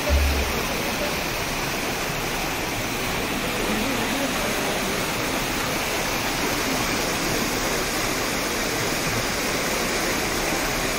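Muddy floodwater rushing and churning through an overflowing storm-water drain: a steady, loud rush. A brief low thump at the very start.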